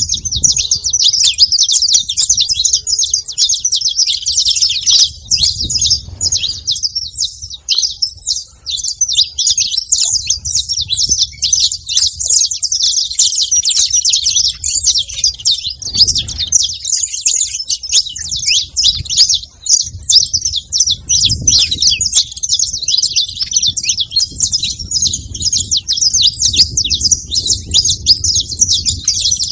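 A group of saffron finches chirping together without a break, many quick high calls overlapping.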